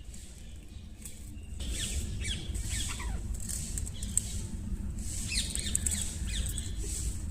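Pet parrot making many short, quick chirps and squeaks, starting about a second and a half in, with bursts of rustle or flutter between them.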